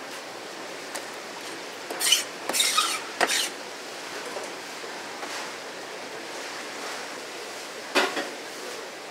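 Knife and dish handling at a fish-cutting counter: a few short scraping and clattering sounds over a steady background hiss, a cluster of them about two to three and a half seconds in and one more about eight seconds in.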